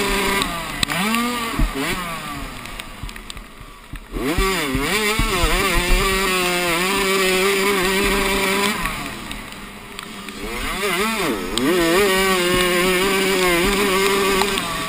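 Minicross (youth motocross) bike engine heard close up, revving hard and rising in pitch, then easing off twice, about two seconds in and around ten seconds, before winding back up.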